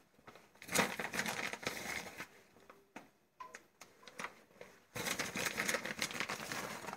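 Crinkling and rustling of packaging and a foil tray as shredded cheese is sprinkled by hand over minced meat, in two bursts: one about a second in and another from about five seconds in.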